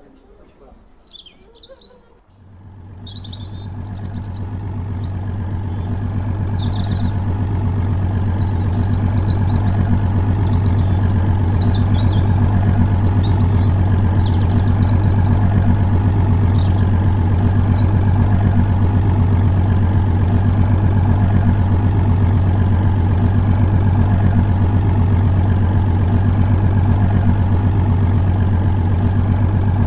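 Birds chirping, then about two seconds in a steady low mechanical drone, like an idling engine, fades in over several seconds and holds, loud and even, drowning out the birdsong.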